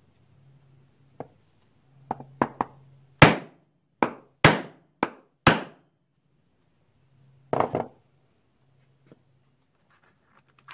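Ball-peen hammer striking a steel letter punch to stamp a 6061 aluminium disc: a few light setting taps, then five hard, ringing blows in under three seconds. A short rattle follows a couple of seconds later.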